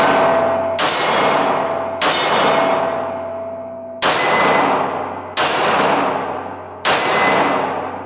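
Five shots from a SIG P230 pistol firing .380 ACP ball, one every one to two seconds, each followed by the ring of a struck steel target and a long echo off the concrete range walls. The last shot empties the magazine and the slide locks open.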